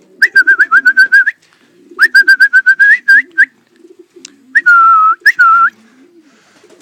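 Loud whistling in short warbling bursts, in three runs with a longer dipping note near the end, calling a homing pigeon in off the loft's landing board. Pigeons coo low underneath.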